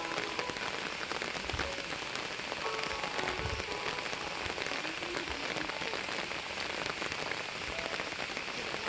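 Steady rain falling on leaves and grass, a constant hiss pattered with many small drop ticks. A couple of dull low thumps come about one and a half and three and a half seconds in.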